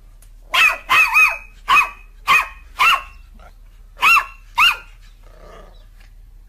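Black-and-tan puppy barking: eight short, high-pitched yaps in quick runs, each rising and falling in pitch, with a pause of about a second before the last two.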